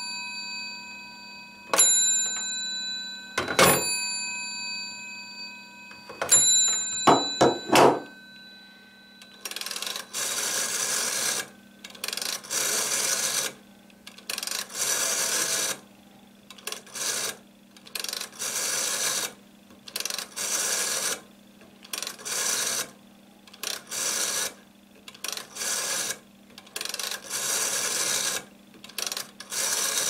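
A green 1980s UK rotary telephone (GPO 746 type): several sharp clicks, each with a brief ting of the internal bell, as the handset and cradle switch are worked. Then a long series of whirring runs of varying length as the finger dial is pulled round and spins back for each digit.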